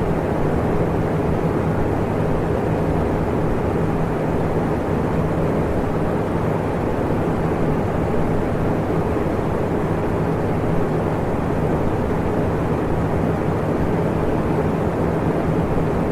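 Electric fan running steadily: an even, low rush of air with a faint motor hum under it.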